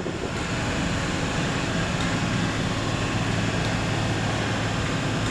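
Merseyrail Class 777 electric train standing at the platform, its onboard equipment giving a steady low hum, with a couple of faint ticks.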